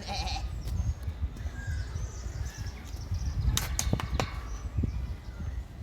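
Outdoor ambience: a steady low rumble on the microphone, with a few sharp clicks about three and a half to four seconds in and faint short chirps.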